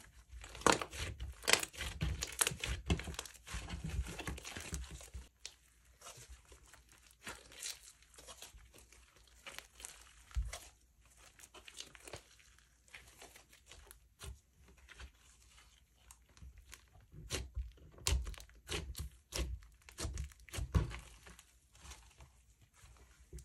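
Slime being squished and stretched by hand, giving off sticky crackling and popping clicks. The crackling is dense for the first few seconds, thins out, then picks up again about two-thirds of the way through.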